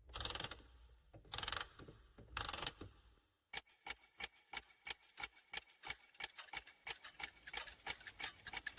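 Clock-ticking sound effect opening a song. First come three short hissing bursts about a second apart, then a run of sharp ticks that speeds up to several a second.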